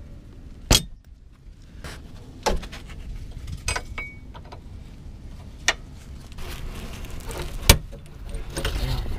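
Sharp clicks and metallic clinks, about five spread out and the loudest near the end, with scraping and rustling between: old brake lines and their retaining clips being pried and worked loose under a car with a gloved hand and a metal tool.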